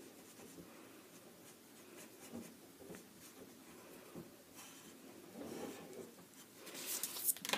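Graphite pencil scratching on paper as lines are drawn, in faint, uneven strokes that grow louder near the end.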